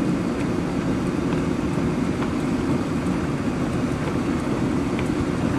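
Steady low rumble of a slowly rolling vehicle, with wind buffeting the microphone.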